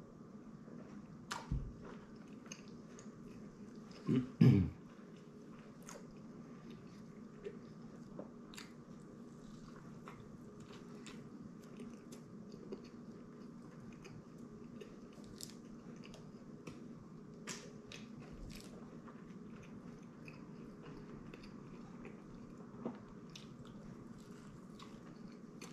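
A man chewing and biting into a bacon cheeseburger, the mouth sounds soft and close, with scattered small clicks. Two dull thumps stand out in the first few seconds.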